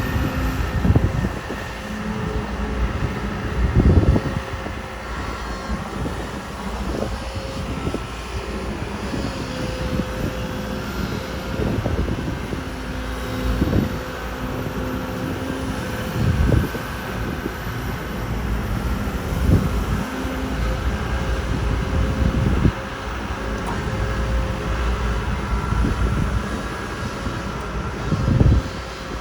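Kobelco SK250 excavator's diesel engine running steadily, with heavy thumps and rumbles every few seconds as the bucket digs soil and dumps it into a truck.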